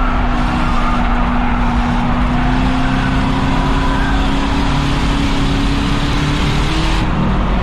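Race car engine running hard at high revs on an oval, its pitch climbing slowly for several seconds and easing off about seven seconds in, over a steady rush of tyre and wind noise.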